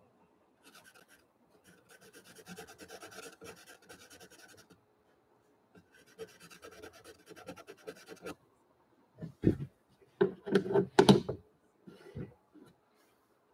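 A pastel pencil scratching across gesso-coated watercolour paper in quick short strokes, in two runs. Near the end comes a burst of loud clattering knocks, as pencils are handled in the easel's wooden tray.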